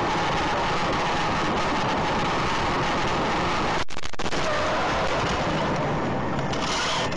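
Dashcam recording of a moving car's cabin: steady rushing road, wind and engine noise. It cuts out for a split second about four seconds in, around the moment the car crashes and its windshield cracks.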